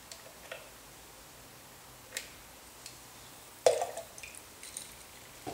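Chocolate syrup being squeezed from a squeeze bottle into a measuring spoon and tipped into a blender jug: a few short, quiet squelches and clicks, the clearest about two-thirds of the way through.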